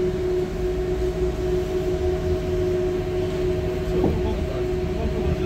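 Inside a Mercedes-Benz O405N2 city bus under way: steady low rumble of the engine and road noise with a constant whine, and a brief click about four seconds in.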